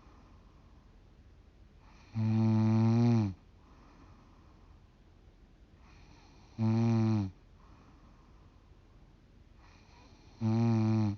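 A woman snoring in her sleep: three loud, pitched snores about four seconds apart, the last one cut off at the end, with quieter breaths between them. Her snoring is offered as a possible sign of sleep apnea.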